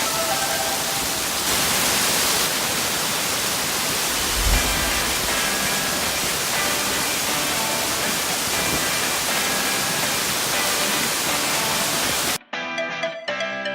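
Steady rushing of a waterfall, with background music faintly underneath. A little after twelve seconds the water sound cuts off abruptly, leaving only the music.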